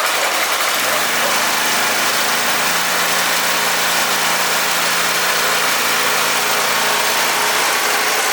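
Mini rice milling machine running steadily with a loud, even whirring noise over a low hum; the hum drops slightly in pitch about three seconds in.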